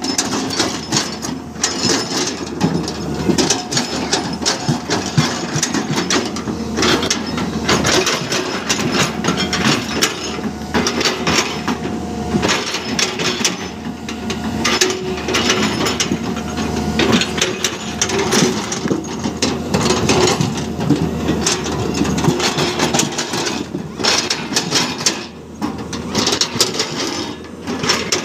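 Excavator's diesel engine running steadily while its steel bucket digs and scrapes through rocky soil, with a constant clatter and knock of stones.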